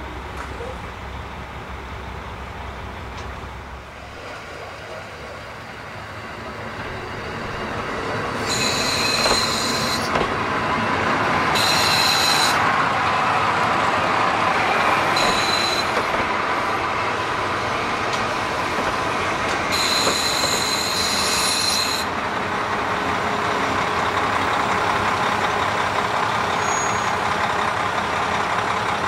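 JR Hokkaido KiHa 40 diesel railcars approaching and passing close by. The engine and rail noise build up from about four seconds in and stay loud. Over them come four bouts of high-pitched squeal from the wheels.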